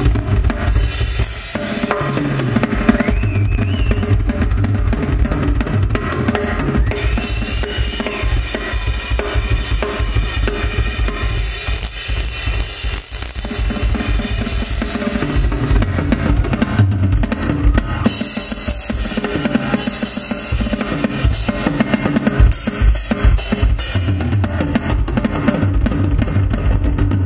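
Live rock drum solo on a full drum kit: dense, rapid bass drum and snare strokes with cymbals, easing off briefly about halfway through before picking up again.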